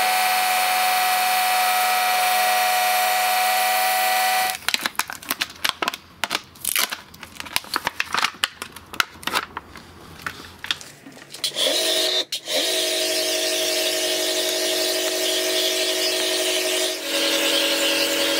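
Bosch Fontus 18V cordless pressure washer's electric piston pump running with a steady whine. It stops about four seconds in, giving way to several seconds of irregular clicks and knocks, then starts again with a brief rise in pitch and runs steadily to the end.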